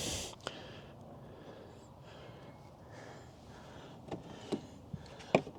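Ratchet wrench tightening the TV bracket screws: a short hiss at the start, then mostly quiet handling with a few sharp clicks, most of them near the end.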